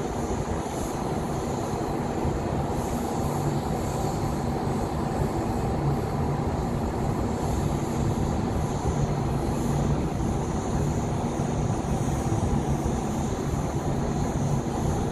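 Steady mechanical rumble with a faint low hum, unchanging throughout.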